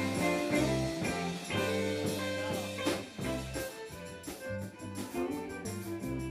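Live band playing an instrumental stretch of a song: a moving bass line under a drum kit keeping a steady beat, with held instrument notes above.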